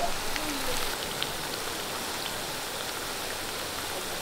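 Rava-coated breadfruit pieces deep-frying in hot coconut oil: a steady sizzle with scattered small crackles.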